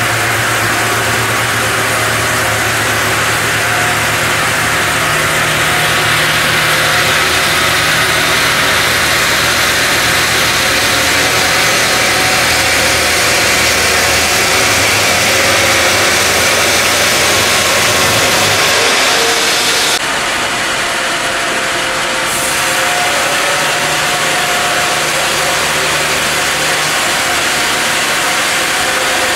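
Brenta CD horizontal bandsaw running and sawing through a log: a loud, steady machine noise of the blade in the wood over the hum of the drive. About twenty seconds in, the hum drops out and the sound thins briefly, then picks up again.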